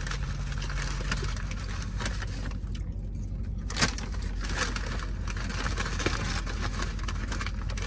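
Brown paper takeout bag crinkling and rustling as it is handled, with a sharper crackle about four seconds in.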